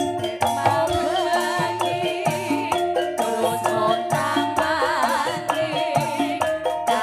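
Live campursari music, a Javanese blend of gamelan-style instruments and band instruments, playing at a steady beat with percussion and an ornamented melody that wavers in pitch.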